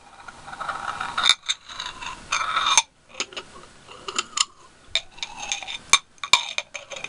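Two glass candle jars, one with a ribbed side, rubbed and knocked against each other: glass-on-glass scraping in short stretches, broken by several sharp clinks that ring briefly.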